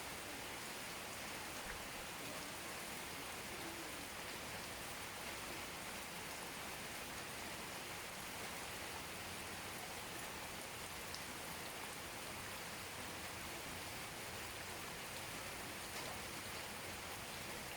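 Steady rainfall: an even hiss of rain with a few separate drops ticking now and then.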